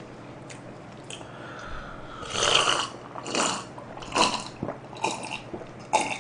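A person gulping an iced drink from a wine glass: a run of five or six swallows, about one a second, starting about two seconds in.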